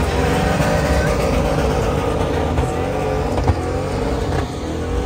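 A truck engine running and revving, its pitch rising and falling over a steady low rumble.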